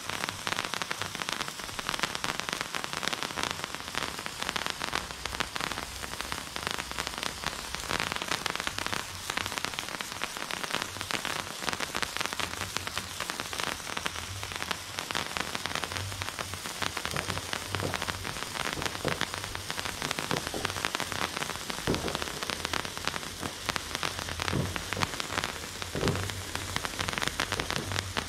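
Bright Star Magic Wand yellow-effect handheld fountain firework burning in the hand: a continuous, even hiss of spraying sparks, dense with fine crackles.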